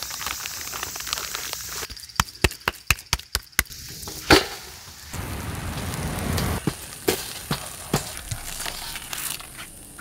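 Wood fire crackling: a run of sharp irregular pops and snaps over a hiss, with one loud snap a little after four seconds in.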